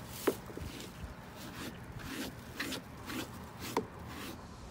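Bath brush scrubbing a wet, lathered dog's coat in short strokes, about two a second, with two brief high squeaks.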